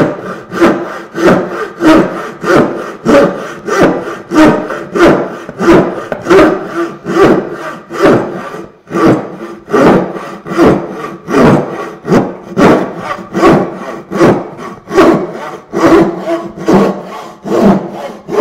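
Turning saw (a wooden-framed bow saw) cutting a curve into a thick pine board, sawing back and forth in a steady rhythm of strokes, about three every two seconds.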